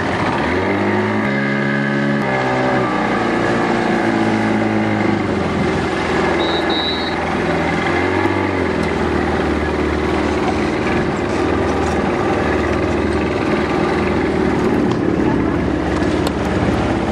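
Motorboat engine running. Its pitch shifts up and down in steps over the first few seconds, then settles to a steady drone.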